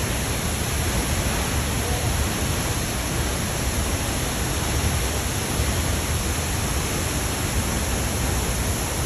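La Fortuna waterfall: steady rushing of falling water, even and unbroken throughout.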